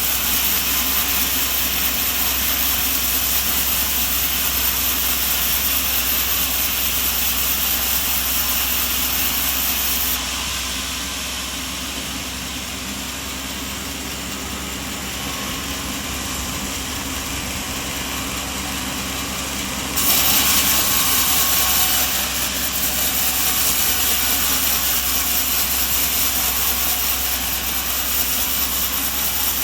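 Steady, loud running-machinery noise, with the sound changing abruptly about ten and twenty seconds in.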